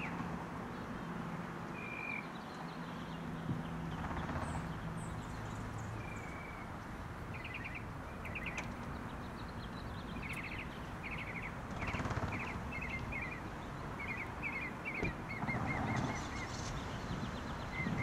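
Small birds chirping in short, repeated trills over a steady background hum, with a few faint knocks and rustles.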